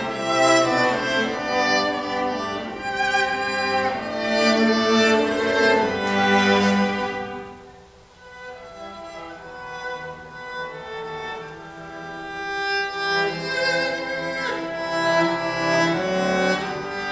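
Cello ensemble playing held bowed chords. The sound fades to a hush about eight seconds in, then swells back up.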